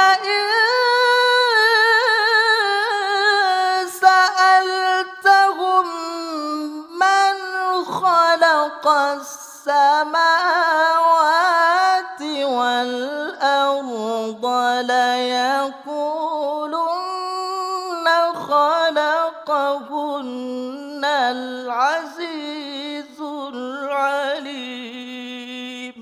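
A man reciting the Quran in the melodic, ornamented competition style (tilawah), voice only. He holds long phrases with winding pitch turns, starting high and stepping down to a lower register about halfway through.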